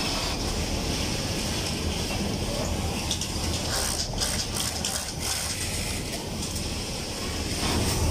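Steady din of a garment factory floor: industrial sewing machines running with a low hum, and a few short clicks about halfway through.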